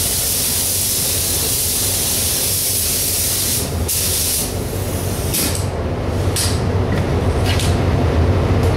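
Gravity-feed air spray gun hissing as it sprays sealer primer onto a bumper, in long passes at first, then a few short trigger bursts from about five seconds in. Under it runs a steady low machine hum that grows a little louder in the second half.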